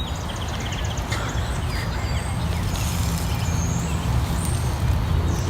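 Outdoor wind buffeting the microphone as an uneven low rumble, with faint bird chirps high above it.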